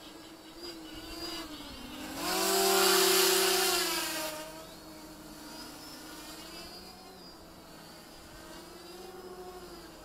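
A 450-size quadcopter's electric motors and propellers buzzing in flight, the pitch rising and falling as the throttle changes. It is loudest from about two to four and a half seconds in, when it passes close to the microphone.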